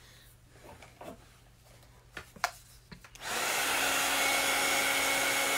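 A few light taps, then a handheld craft heat tool switches on a little over three seconds in and runs with a steady blowing hum, drying freshly applied chalk paste.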